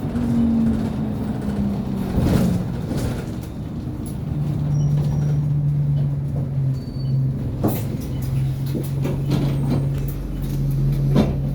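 Inside an Alexander Dennis Enviro200 single-deck bus on the move: a tone falls in pitch over the first two seconds or so, then about four seconds in a steady low hum from the engine cooling fan sets in and holds, with scattered knocks and rattles over it.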